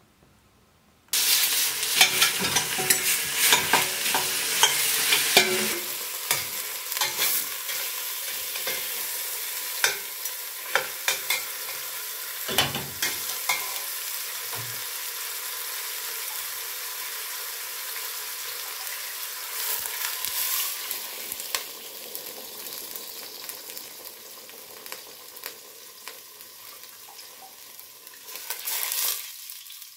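Beef shanks sizzling in hot oil in a stainless steel pot. The sizzle starts abruptly about a second in and is loudest for the first few seconds, then settles and slowly fades, with scattered clicks and scrapes of a metal spatula turning the meat. Near the end there is a brief swell of sizzling as liquid is poured in from a bowl.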